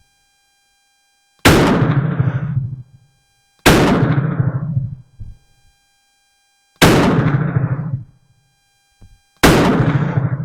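Zastava M83/94 .357 revolver fired four times, two to three seconds apart, each shot a sharp crack trailing off over about a second.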